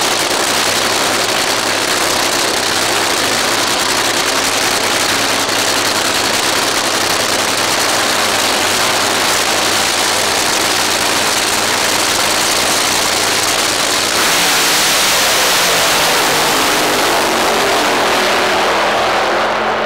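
Supercharged nitromethane V8 engines of a Top Fuel dragster and a nitro Funny Car idling loudly on the start line. About fourteen seconds in, the sound turns louder and brighter as the cars launch at full throttle, and it stays up to the end.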